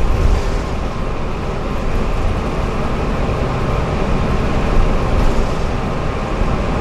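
A bus running at road speed, heard from inside the cabin: steady engine and road noise, heaviest in the low end.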